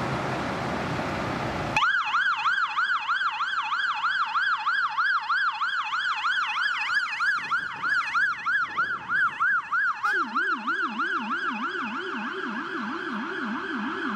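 Fire engine's electronic siren on a fast yelp, sweeping up and down about three times a second. About ten seconds in, a second, lower-pitched yelping siren joins as the first fades. It starts abruptly after about two seconds of steady rushing noise that cuts off suddenly.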